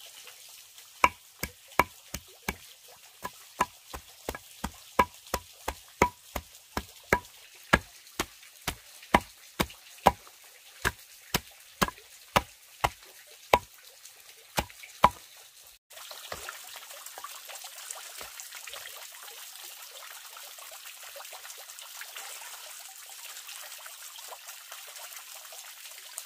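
Knife chopping through a clump of plant roots on a wooden block: about thirty sharp strikes, roughly two a second, stopping about 15 seconds in. After that, a steady trickle of water from a small stone fountain in a pond.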